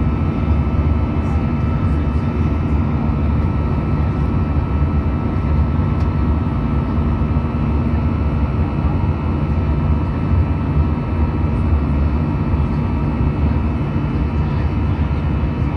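Steady cabin roar of an Airbus A319-111 in the climb, heard from a window seat beside the wing: its CFM56 jet engines and the rushing airflow, with a few faint steady whining tones above the roar.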